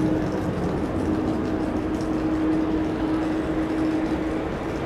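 Airbus A350-900's Rolls-Royce Trent XWB turbofans at taxi power as the airliner rolls along the taxiway: a steady jet drone with a held hum that fades a little near the end.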